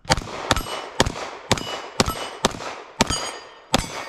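A timed string of about eight quick gunshots at steel targets, roughly two a second, each with a ringing clang as the steel plates are hit. The last shot comes after a slightly longer pause and ends the string.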